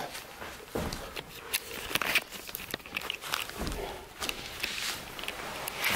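Irregular knocks and rustling: footsteps on wooden floorboards in a small room, with clothing brushing against the handheld camera.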